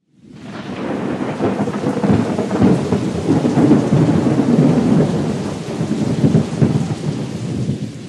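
A thunderstorm: heavy rain with a continuous low rumble of thunder, fading in over the first second and beginning to fade away near the end.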